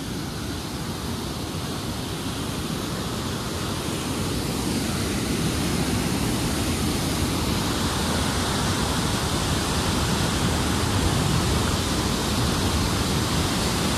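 Glacier-fed mountain stream rushing, a steady noise of fast water that grows gradually louder.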